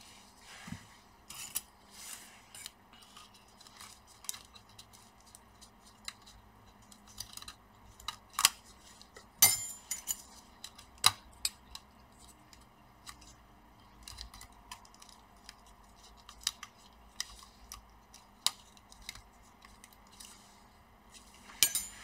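Scattered light clicks and taps of metal tweezers and gloved fingers on small cable connectors and plastic parts inside an opened laptop, with a few sharper clicks around the middle.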